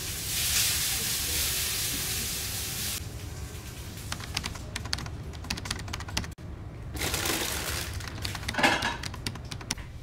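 Tomatoes and meatballs sizzling in a hot frying pan for about three seconds, followed by light clicking and clattering of cookware, with a shorter burst of sizzling and a clatter near the end.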